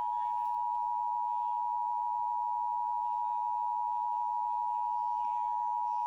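Emergency Alert System attention signal: the steady two-tone alarm (853 Hz and 960 Hz together) that follows the data header and announces the spoken warning, here a National Weather Service severe thunderstorm warning, played through a screen's speaker.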